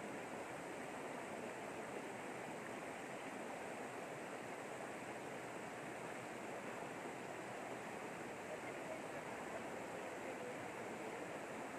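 Shallow, rocky river rushing steadily over stones and small rapids.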